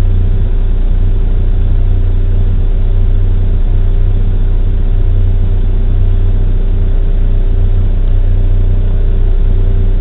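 Backhoe engine running steadily at a constant speed, a loud, even low rumble with a steady hum, heard from inside the operator's cab.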